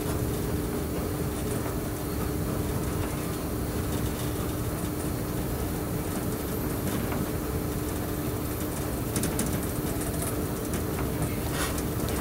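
Running noise of a moving train on the rails: a steady rumble with a constant hum, and a few short clicks from the wheels in the second half.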